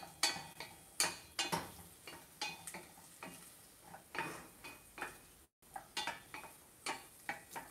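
A wooden spoon knocking and scraping against a stainless steel saucepan as diced onion is stirred, in irregular strokes about once or twice a second. Underneath is a faint sizzle of the onion softening in butter and oil. The sound drops out for a moment a little past halfway.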